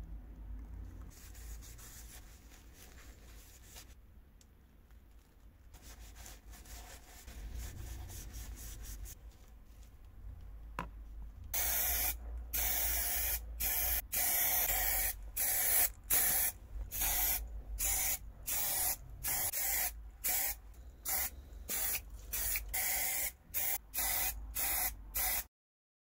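Primer being sprayed onto metal parts, a loud hiss starting about halfway through and coming in many short on-off bursts.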